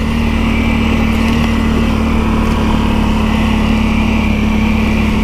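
ATV engine running steadily while riding, holding an even pitch and level.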